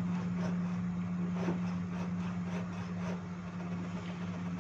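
Hand saw cutting a small block of wood, its strokes coming about twice a second, over a steady low hum.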